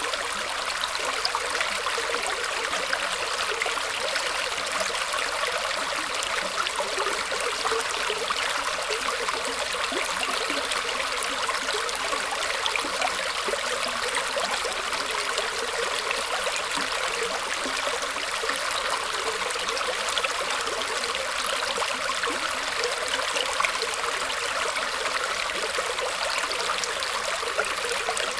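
Water trickling and flowing steadily through roots, a constant even hiss of small-stream water with little low rumble.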